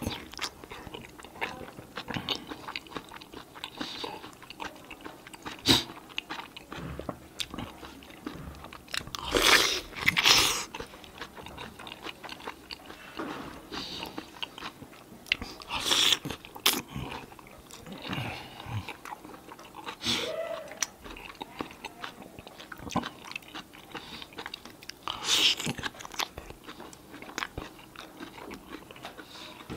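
Close-miked eating of a juicy, cheese-stuffed roasted red bell pepper: wet bites and steady chewing, with a few louder bites about ten, sixteen and twenty-five seconds in.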